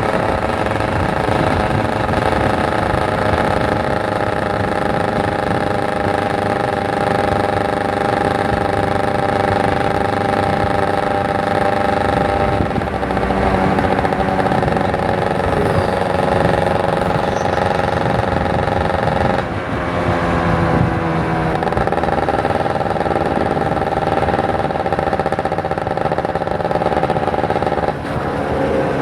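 Kawasaki Ninja 150 RR's single-cylinder two-stroke engine running under way at a steady, high-pitched note. The revs drop and pick up again a few times, around 13 s, 20 s and near the end.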